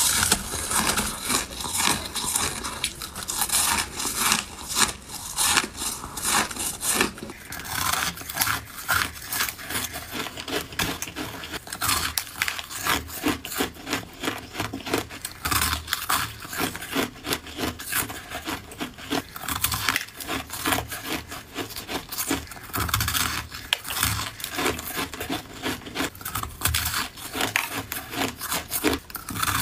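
Close-miked crunching and chewing of ice, a fast run of crisp bites and grinding chews. About seven seconds in the texture changes from a dense, powdery crunch of packed shaved ice to sharper, more separate crunches of a hard, coarse frozen slab.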